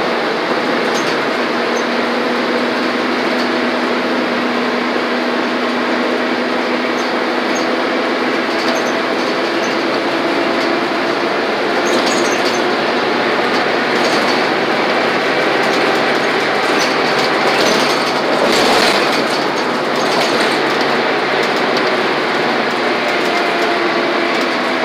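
City transit bus cruising at highway speed, heard from inside the cabin: a steady drone of engine, drivetrain and road noise with a few light rattles.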